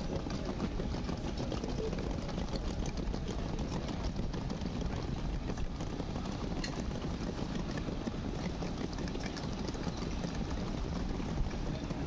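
Outdoor city street ambience: a steady low rumble, likely engines and traffic, with faint scattered clicks.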